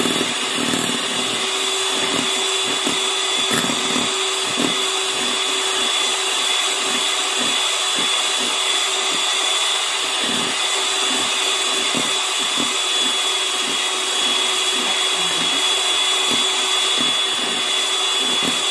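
Electric hand mixer running at a steady speed, its beaters whipping instant coffee, sugar and hot water in a ceramic bowl for dalgona coffee. A constant high whine over a lower hum, with frequent light knocks of the beaters against the bowl.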